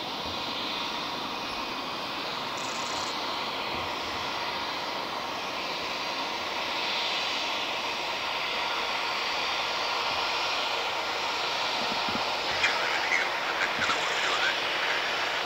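Embraer E190 twin-jet's turbofan engines running at taxi power as the airliner turns around on the runway. A steady jet hiss and whine grows slightly louder, with a few short high chirps near the end.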